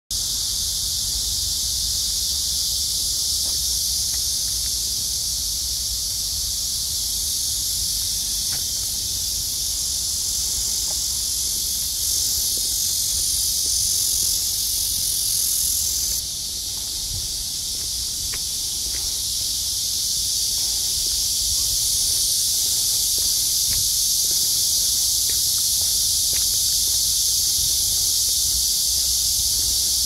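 A chorus of cicadas buzzing in a steady, dense, high-pitched hiss. It swells a little louder from about twelve seconds in and drops back suddenly about four seconds later.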